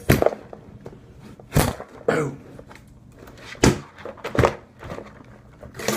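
Cardboard shipping box being cut and opened by hand with a knife: several sharp thumps and scrapes of cardboard, spaced unevenly.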